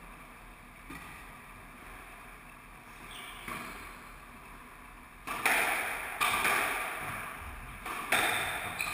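Squash ball struck back and forth in a rally, starting about five seconds in. Sharp racket hits and wall impacts ring out in the enclosed court, roughly one a second, after a quiet stretch with only a few faint taps.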